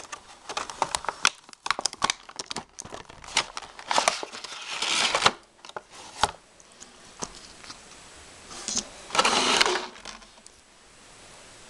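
Toy packaging being opened by hand: a run of sharp clicks and crinkles of plastic and cardboard, with two longer crinkling rushes, one about four seconds in and one about nine seconds in. Near the end it settles to a faint hiss.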